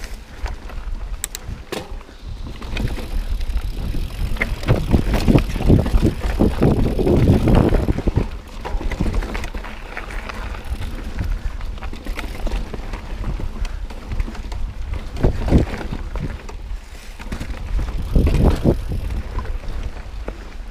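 Mountain bike riding fast down rocky, rooty dirt singletrack: tyres rolling and crunching over dirt, leaves and rocks, and the bike clattering and rattling over each bump. The clatter is heaviest about five to eight seconds in, with shorter rough patches later.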